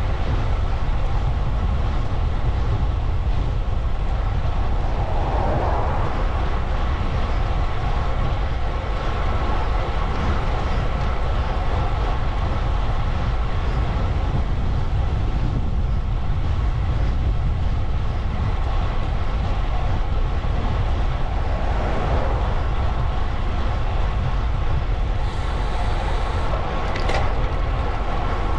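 Steady wind rumble and road noise on the microphone of a moving bicycle, with a short hiss and a click near the end.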